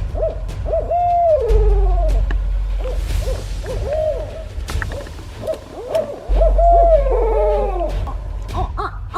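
Barred owls calling: a string of hoots and long wavering calls that slide downward in pitch. A steady low rumble sits underneath at times.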